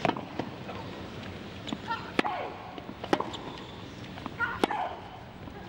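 Tennis rally: racket strikes on the ball at intervals of one to one and a half seconds, with a short grunt from one player on two of the shots, about two seconds and four and a half seconds in.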